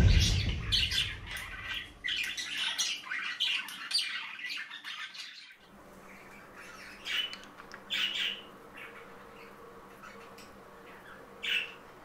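Budgerigar squawks and chirps: a dense run of short high calls for a few seconds, then single squawks a second or more apart.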